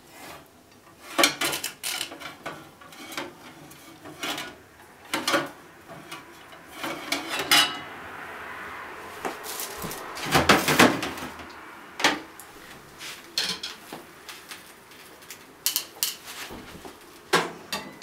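A dish being lifted out of a microwave and handled: scattered sharp clinks and knocks of crockery, with a short hiss and the loudest clatter about ten seconds in.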